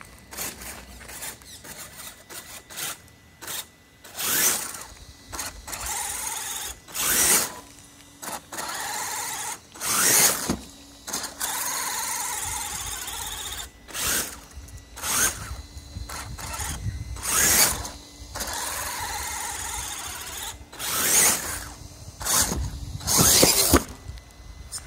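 RC rock crawler's electric motor and drivetrain whining in repeated stop-start throttle bursts, with a few steadier runs of a couple of seconds, as its tyres churn through mud and puddle water.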